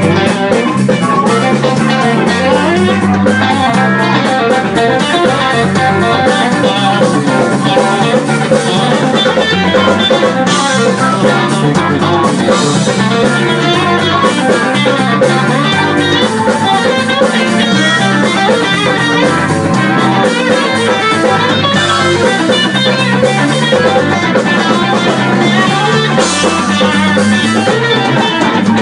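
Live blues band playing: two electric guitars over a drum kit, loud and continuous.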